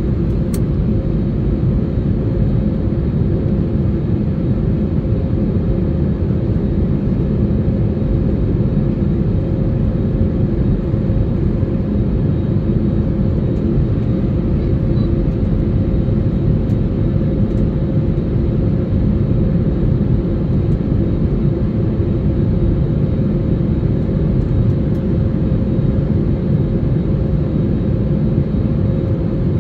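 Airliner cabin noise during the climb after takeoff: a loud, steady roar of engines and rushing air with a constant hum running through it.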